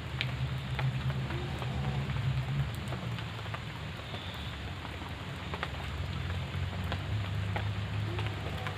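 Steady rain falling, with many scattered drops ticking and a steady low rumble underneath.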